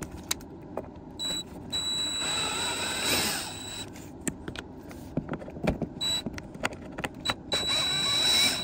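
Cordless screw gun running in short and longer bursts with a steady high whine, backing screws out of an RV slide-out's trim cap. Sharp clicks and knocks come between the runs.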